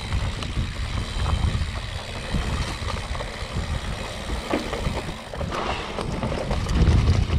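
Mountain bike rolling fast over a rough dirt trail: tyres rumbling, frame and components rattling with scattered knocks, and wind rushing over the microphone.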